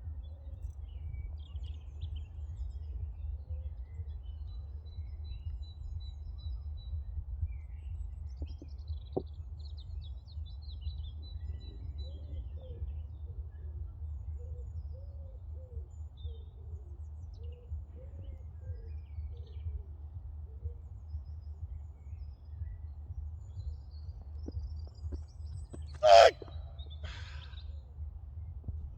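A steady low rumble with faint bird chirps, and one loud sharp strike near the end, a sledgehammer blow.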